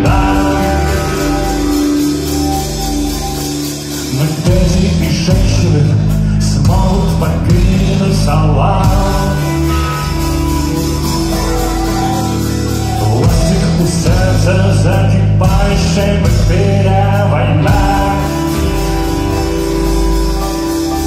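Rock band playing live, with electric guitar and bass guitar, in a concert hall recording made from the audience.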